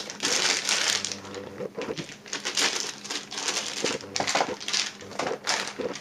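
Clear plastic packaging bag crinkling and rustling as it is handled, in irregular bursts.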